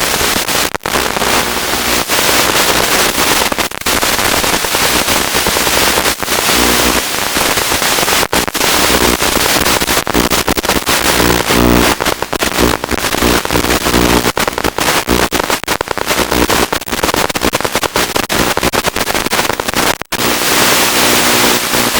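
Loud crackling static hiss from an analog FPV video link, cutting out briefly again and again as the signal breaks up, with a buzzing hum coming through in the middle stretch.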